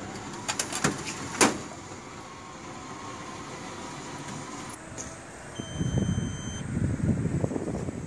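Coffee vending machine making a drink. A few sharp clicks and a knock open the dispensing, as a cup drops into the bay. A steady motor or pump hum follows, then an electronic beep lasting about a second some six seconds in, with a louder low rushing noise near the end.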